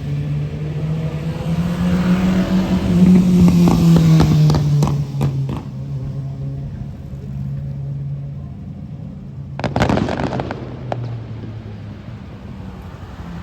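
Fireworks display: shells crackle in a quick cluster about five seconds in, then a sharp burst comes near ten seconds in and is followed by a second of crackling. A steady low hum runs underneath.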